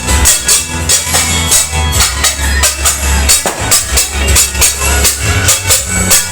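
Loud music with a fast, steady beat of sharp jingling strokes over heavy bass.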